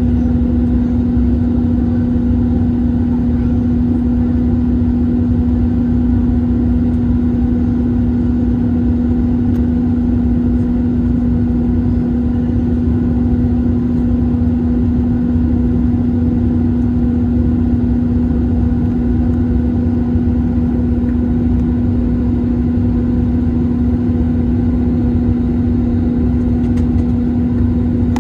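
Airbus A321-231 jet airliner in climb, its IAE V2500 turbofans and airflow making a steady low rumble with a constant hum running through it.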